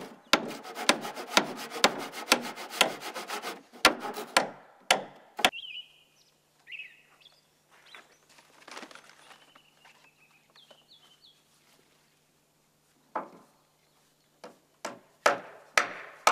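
Handsaw cutting a wooden roof plank in quick, regular strokes, followed by four sharp knocks. In a quieter stretch a bird chirps several times, and sharp knocks start again near the end.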